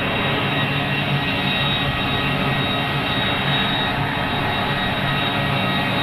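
Grumman C-2 Greyhound's twin turboprop engines running as the aircraft rolls along the runway: a steady drone with several high whining tones.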